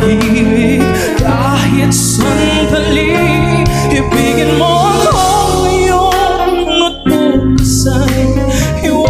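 A male singer sings a Tagalog song into a handheld microphone over instrumental accompaniment.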